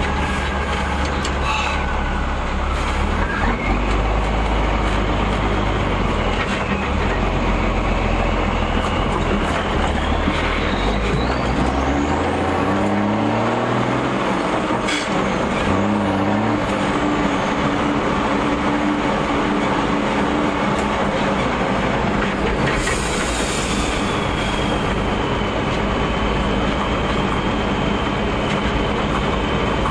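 REO M35 army truck's engine running under load while driving off-road, with the revs climbing in several steps around the middle, and a high whine over the running.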